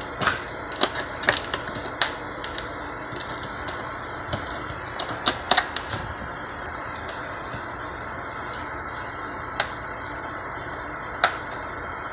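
Crackling and clicking of a food package being worked open by hand: a dense run of sharp crackles over the first six seconds, then only a few scattered clicks.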